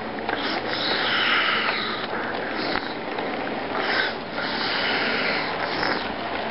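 Model train freight cars rolling past close by: a steady rushing noise of metal wheels on the track, with scattered clicks as they cross rail joints.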